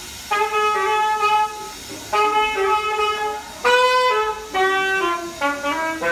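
Saxophone playing a melody in phrases of held notes that step between pitches, with short breaks between phrases.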